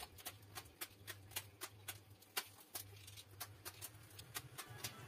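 Faint, regular ticking, about four sharp ticks a second, over a steady low hum.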